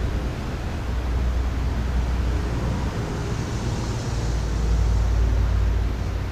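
Steady outdoor background noise: a deep rumble under a steady hiss, typical of wind on the microphone and traffic. It swells a little about four to five seconds in.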